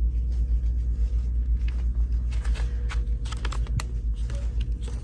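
Scattered light clicks and taps over a steady low rumble, the sound of items being handled while browsing a store shelf.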